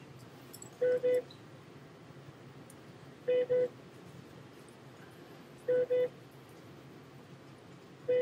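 An electronic beeper sounding a pair of short beeps at one pitch, repeating about every two and a half seconds, four times, over a faint steady hum.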